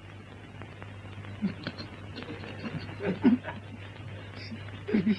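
A few short bursts of a person's voice, with soft chuckling, over a steady low hum; a livelier run of chuckles starts near the end.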